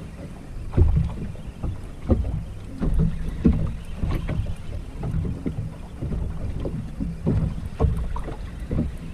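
Wind buffeting the microphone in an uneven low rumble, with irregular thumps of choppy water slapping against a small boat's hull.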